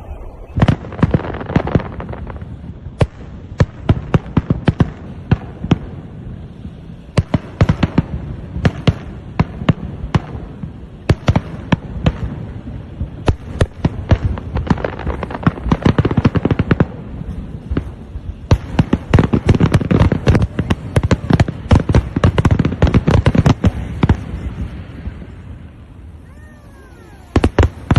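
Fireworks display: aerial shells bursting in a dense, continuous run of sharp bangs and crackling pops over a low rumble, thinning out near the end.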